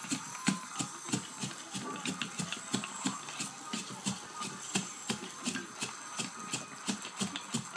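A wooden stick pounding unhulled rice inside a glass sake bottle to hull it by hand: quick, repeated knocks of roughly four or five a second.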